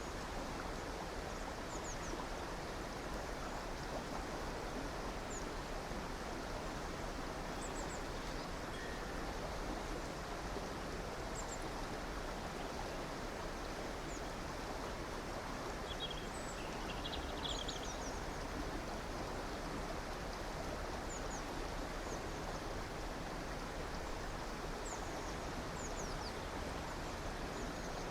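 Steady rushing of a flowing river or stream, with small birds chirping now and then, a short flurry of calls about two-thirds of the way in.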